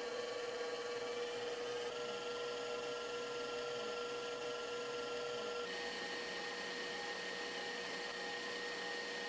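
Electric stand mixer running with its wire whisk whipping egg whites: a steady motor hum and whine. About halfway through, the whine steps up to a higher pitch.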